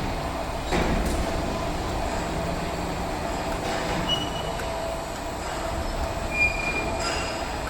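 Electric welding rotator running on its rollers: a steady mechanical rumble with a faint steady whine, a knock about a second in, and short high squeaks about four and six and a half seconds in.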